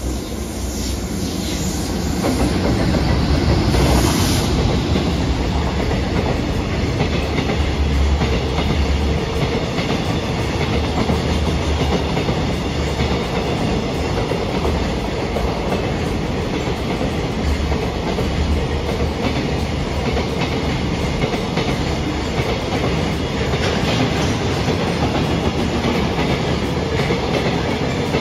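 A train running past, a steady rumble that builds over the first few seconds and then holds loud.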